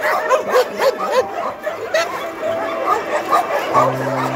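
Many dogs barking, yelping and whining at once, their calls overlapping densely. Background music with held notes comes in near the end.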